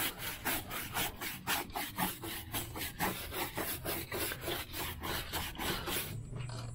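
Stiff-bristle brush scrubbing a tire in quick, even back-and-forth strokes, about four a second. The scrubbing stops abruptly about six seconds in.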